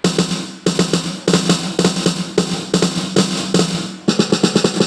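Roland SPD-20 electronic percussion pad playing a fast drum pattern through a speaker, hits coming several a second over a low steady bass tone, starting suddenly as its buttons are pressed. The unit is being tested after repair of its crackling output.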